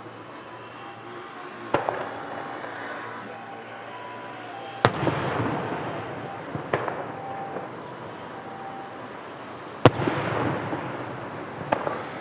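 Aerial firework shells bursting: five sharp booms, two to three seconds apart, the loudest a little before the middle and about ten seconds in. Each boom trails off into a crackling, rumbling tail.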